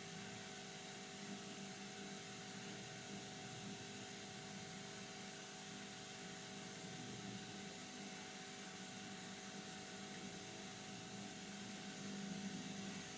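Steady hum with a faint, even hiss: the constant background noise of running electrical equipment.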